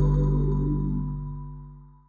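Background music: a held chord fading out to silence near the end.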